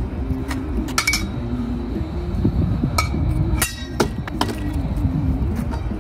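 Steel swords clashing in sparring: a run of sharp metallic clinks, some ringing briefly, about a second in, around three seconds in and several more over the following two seconds, with a low rumble underneath.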